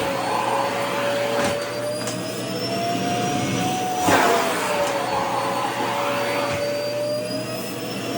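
Vacuum cleaner running, its motor tone slowly rising and falling in pitch, with a sudden rush of noise about four seconds in and a smaller one about a second and a half in.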